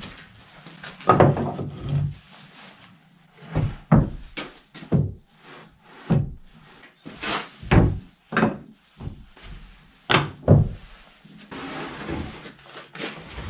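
Wooden boards and timber rails knocking and clattering as they are picked up, set down and shifted on a wooden workbench: about a dozen separate knocks, some sharp, with scraping and handling between. A steady low hum comes in near the end.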